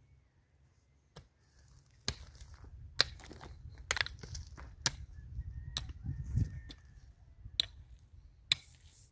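A series of sharp knocks and cracks, roughly one a second, with crunching and rustling between them. It starts about two seconds in after a quiet opening.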